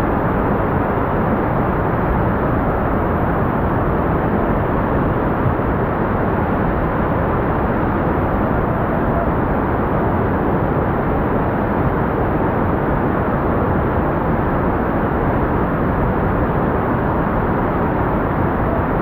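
Whitewater rapids: a steady rush of river water pouring over and around boulders, close to the microphone.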